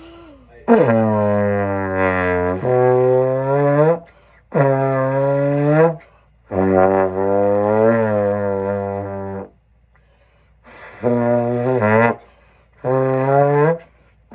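Trombone played in a run of about seven held notes, each one to three seconds long, with short breaks between them; one note slurs to a new pitch partway through.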